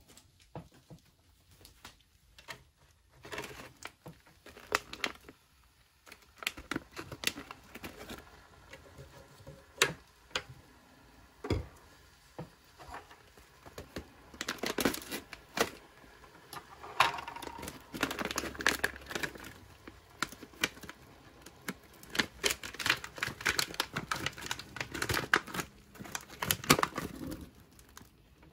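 Foil-laminate MRE pouches crinkling and crackling as they are handled, with a pouch of pretzel nuggets being torn open in sharp crackly bursts in the second half.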